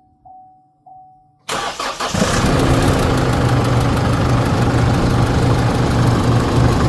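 A repeating in-cab warning chime beeps several times, then about a second and a half in the Holden Colorado's 2.8 L Duramax four-cylinder turbodiesel cranks briefly, catches and settles into a steady idle.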